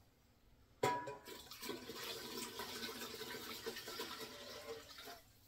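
Water poured from a glass measuring jug into a stainless steel stockpot. It starts sharply about a second in, then splashes steadily for about four seconds and stops shortly before the end.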